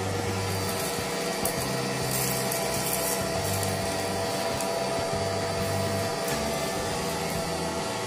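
Small electric motor and fan of a homemade vacuum cleaner running steadily with a whine, sucking scraps of paper up its plastic hose.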